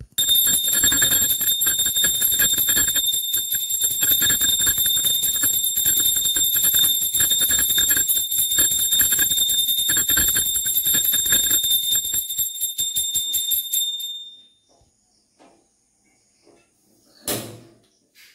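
Small metal hand bell rung rapidly and continuously, a loud, high, shimmering ringing that stops abruptly about fourteen seconds in; a single knock follows near the end.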